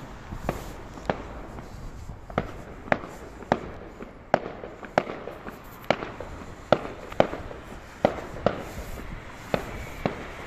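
Fireworks going off in a long, irregular run of sharp bangs, a little under two a second.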